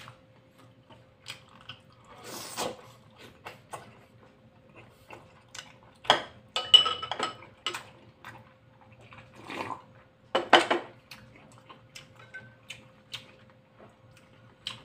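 Scattered clinks and taps of a metal spoon against a pan and bowl, some ringing briefly, mixed with eating noises as skewered fish cake in broth is chewed.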